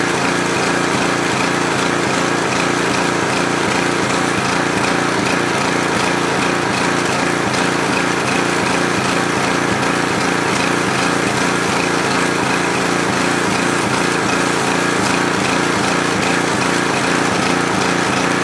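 TEANDE 4200 PSI gas pressure washer running steadily, its small gasoline engine under load beneath a constant hiss of the water spray.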